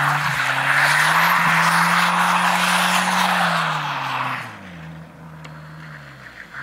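Turbocharged Audi A4 quattro rallycross car sliding through a corner on snow at full throttle, its engine note held steady with a loud rushing noise. About four and a half seconds in the engine note falls and the sound drops away.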